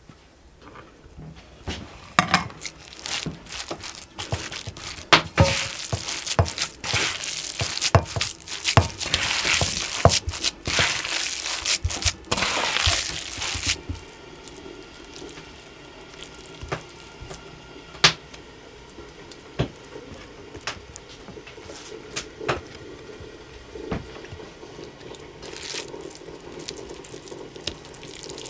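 Water splashing and running, as of washing in a sink or basin, for about twelve seconds, with knocks mixed in. Then quieter handling with scattered clicks and knocks.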